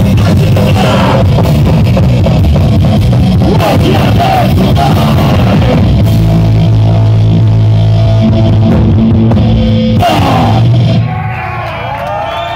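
Live rock band playing loud, with distorted electric guitars, bass and drums. The song stops about eleven seconds in, and the crowd cheers and whoops.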